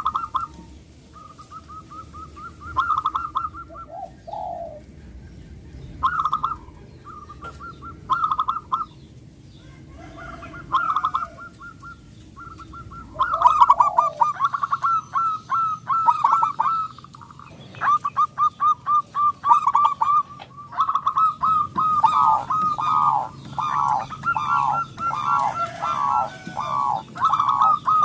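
Zebra dove (perkutut) cooing in repeated phrases of quick staccato notes, sparse at first and then coming faster and denser from about halfway through.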